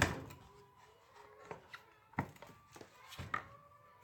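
Knocks and clanks of metal parts being handled while taking apart an electric chainsaw sharpener. A sharp knock at the start is the loudest, and a few more come about two and three seconds in, some ringing briefly.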